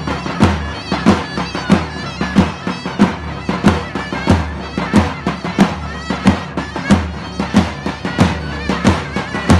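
Davul and zurna playing a live folk dance tune: the zurna's double-reed melody over steady davul strokes, about one and a half beats a second.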